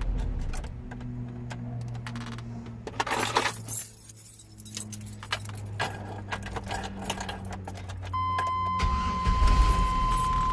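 Keys jangling and clicking over a car engine's steady low running hum. About eight seconds in, a steady high electronic beep tone comes on and holds.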